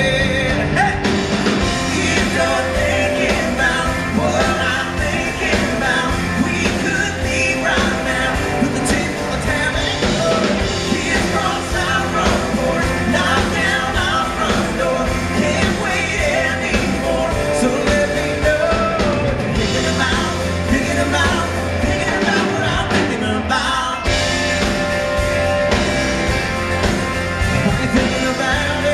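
Live country-rock band playing a song: a male lead voice sings over electric and acoustic guitars, keyboard and bass.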